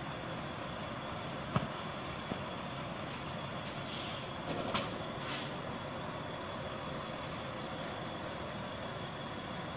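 Tractor-trailer engine running steadily while the rig manoeuvres, with three short hisses of released air from the air brakes between about four and five and a half seconds in. A sharp click comes about one and a half seconds in.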